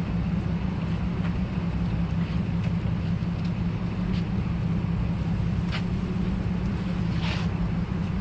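Car engine running steadily at idle, a constant low drone, with a few faint clicks over it.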